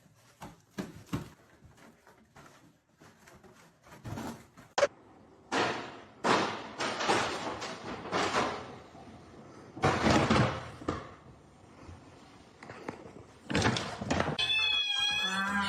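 A cat's noisy cries, mixed with several thumps and knocks, one very sharp about five seconds in.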